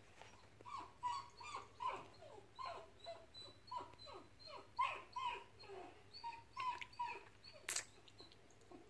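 A dog whining: a string of short, high-pitched whimpers, two or three a second, many of them falling in pitch. A brief scratchy noise comes near the end.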